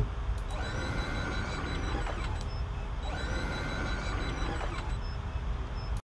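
Electric motor of a power sliding door running twice, about two seconds each time: a whine that rises as it starts, holds steady, then falls away as it stops, over a low hum.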